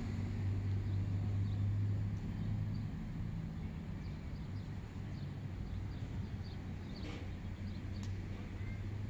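Motorcycle engine running steadily with a low hum, with faint short high chirps over it.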